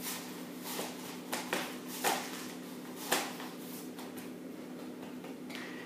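Hands pressing and smoothing shortcrust pastry on baking paper: a few short, soft rustles and pats in the first three seconds, over a steady low hum.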